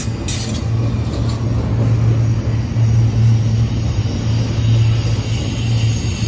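CSX double-stack intermodal freight train cars rolling past: a loud, steady low rumble that swells and eases slightly as the cars go by.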